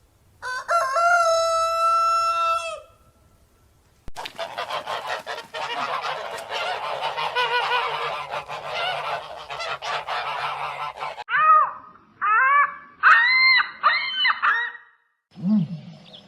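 A flock of geese honking, many calls overlapping at first, then separate single honks near the end. A long held call comes first, about half a second in.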